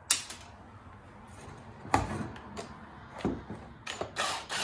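A few sharp clicks and knocks of a cordless drill/driver and small parts being handled while a chainsaw's housing screws are being backed out, with a brief run of the drill/driver near the end.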